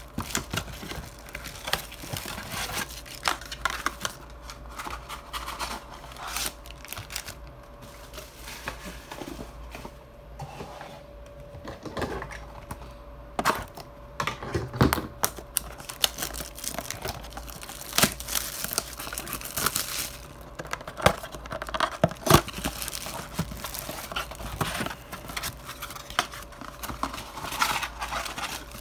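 Handling noise from unboxing trading-card blaster boxes: cardboard boxes torn open and foil-wrapped card packs crinkling as they are pulled out and stacked, with scattered knocks on the table.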